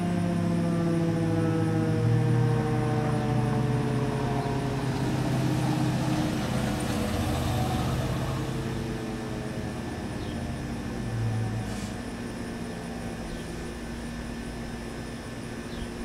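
Rotating warning siren winding down: several tones fall slowly in pitch together and fade out over about ten seconds, over a low steady hum.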